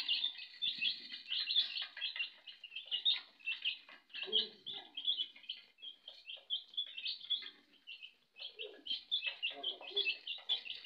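A small group of young domestic chicks peeping without pause, many short high cheeps overlapping one another.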